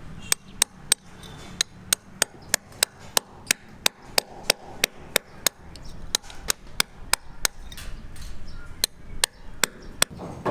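Hammer striking repeatedly at a steady pace of about three sharp, ringing blows a second, with a brief pause near the end.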